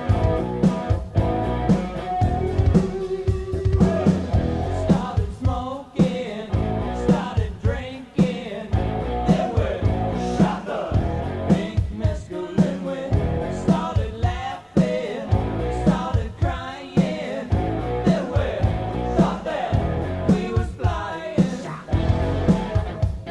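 Rock band recording: a singing voice over electric guitar and a steady drum beat.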